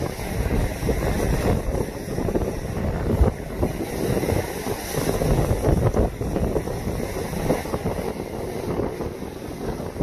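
Rough lake waves rushing and breaking against a concrete seawall, with wind rumbling on the microphone in uneven gusts.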